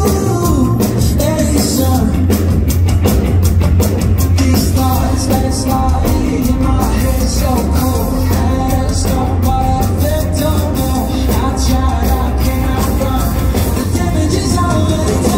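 Live pop-rock band playing loudly, recorded on a phone from the audience: a male lead vocal sung into a microphone over drums, bass and guitar, with a heavy bass.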